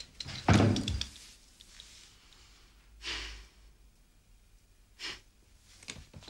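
A door thuds shut with a short rattle about half a second in, then a woman sighs and breathes out softly a couple of times.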